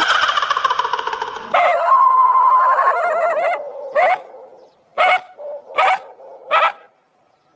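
A falling wail dies away. Then an animal gives a long wavering whine, like a dog's, followed by four short whimpering yelps, used as a horror sound effect.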